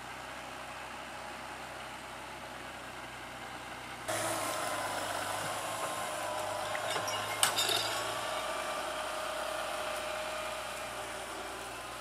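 Case IH CVX175 tractor's diesel engine running steadily under load while ploughing. It turns suddenly louder about four seconds in, as the tractor is close by, with a single sharp click a few seconds later, and fades slightly near the end.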